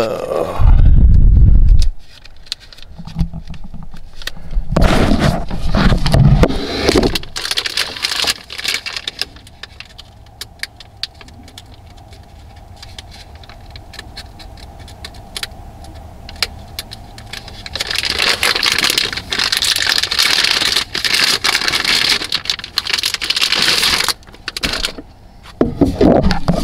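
Foil packaging bags crinkling and rustling in stretches as a prismatic LiFePO4 battery cell is unwrapped and handled, with scattered sharp clicks between them. A heavy low bump about a second in.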